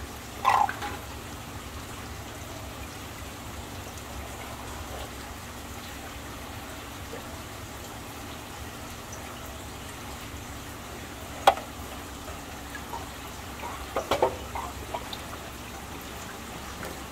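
Steady trickle of aquarium water over a low hum, with one sharp click about eleven and a half seconds in and a few short knocks about two seconds later.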